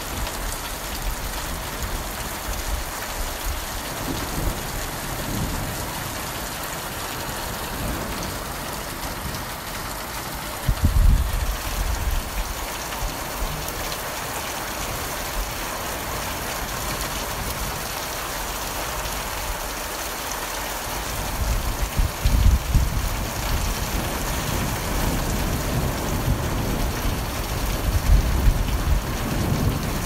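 Heavy rain falling steadily, with a few short low rumbles, once about a third of the way in and a couple of times near the end.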